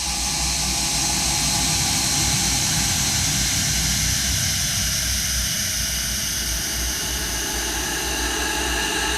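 A recording of a coughing fit slowed down about 24 times, smeared into a steady, noisy drone with a low rumble, a hiss up high and faint tones that drift slowly in pitch.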